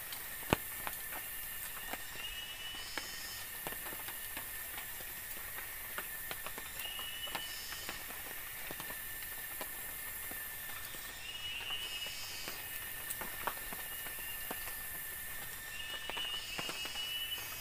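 Forest ambience: a steady high-pitched insect drone with a thin constant tone under it, a short chirping call repeated every few seconds, and scattered sharp clicks, the loudest about half a second in.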